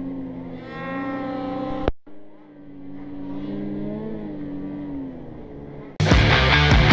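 Snowmobile engine revving, its pitch climbing about a second in; the sound breaks off abruptly just before two seconds, then the engine picks up again and rises and falls. About six seconds in, loud rock music takes over.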